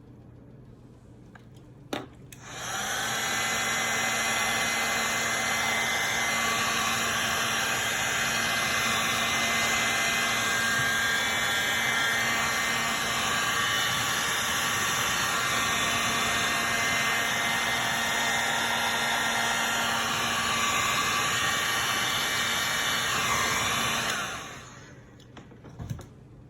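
Heat gun switched on with a click about two seconds in, blowing steadily for about twenty seconds to shrink heat-shrink sleeving over a cable braid, then switched off and winding down near the end.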